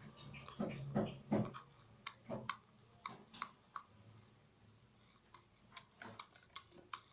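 Irregular light clicks and taps of a spoon against a plastic container being handled, with a few heavier knocks about a second in.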